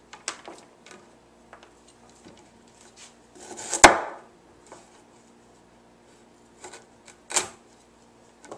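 Chef's knife chopping through tough horseradish root and knocking down onto a wooden cutting board: a sharp knock about four seconds in, the loudest sound, and another about seven seconds in, with light taps and shuffling of roots on the board between.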